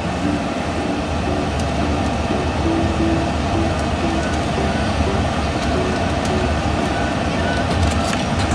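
Steady low rumble of a car's engine and tyres, heard from inside the cabin while driving slowly.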